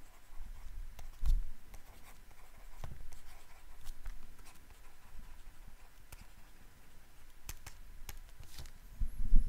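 Stylus writing on a tablet: light scratches and scattered small taps as words are handwritten, with a few soft low bumps, one louder near the end.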